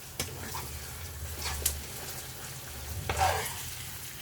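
Okra, onions and fresh pepper sizzling as they fry in groundnut oil in a frying pan, with a utensil clicking and scraping against the pan a few times, loudest about three seconds in.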